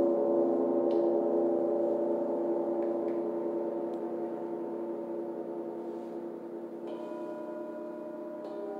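Hanging gongs ringing on after being struck: a dense wash of many sustained tones, slowly fading. About seven seconds in, a higher, thinner ring joins, with a few faint ticks from handling.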